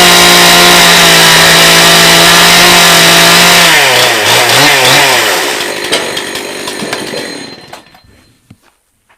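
Two-stroke chainsaw running at full throttle, then the throttle is released: the engine speed drops and wavers with a couple of brief revs, and it winds down and stops about eight seconds in.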